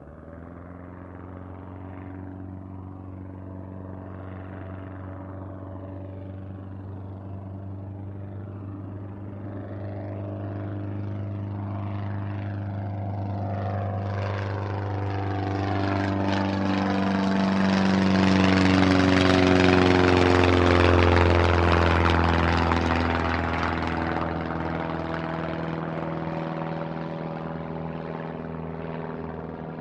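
Single-engine Cessna propeller plane flying past: its engine-and-propeller drone grows steadily louder for about twenty seconds, peaks, then drops in pitch as it goes by and fades away.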